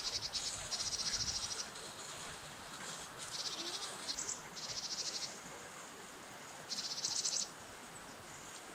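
Japanese tit giving harsh buzzing calls: about five short bursts of rapid, high rasping pulses, each under a second long.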